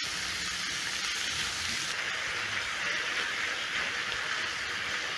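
Raw minced meat sizzling steadily in hot oil in a frying pan over a high gas flame, a continuous even hiss.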